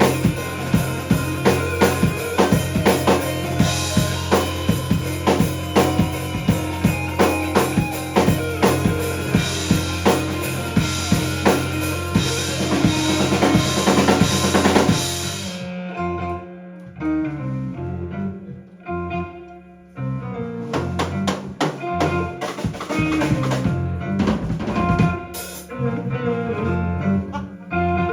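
Live indie rock band playing an instrumental passage, with a steady, busy drum kit beat over bass and guitar. About halfway through the drums and cymbals drop out, leaving sparser bass and guitar notes, and the drums come back in lighter a few seconds later.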